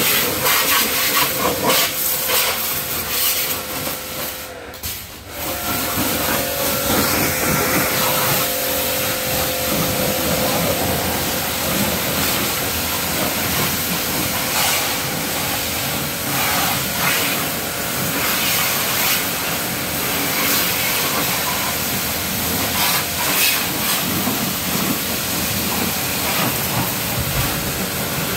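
High-pressure jet cleaner spraying water in a steady hissing stream over a motorcycle, with a steady hum underneath. The spray cuts out briefly about four to five seconds in, then carries on.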